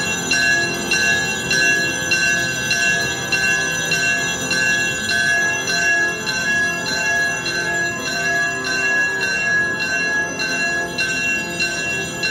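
Church bells ringing continuously, struck again and again in quick succession, with sustained high ringing tones and faint music beneath.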